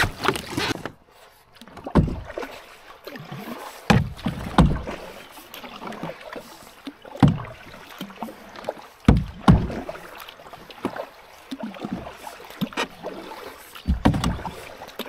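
Kayak paddling: a double-bladed paddle dipping and splashing into the lake water, stroke after stroke, with the loudest splashes coming about every two to three seconds.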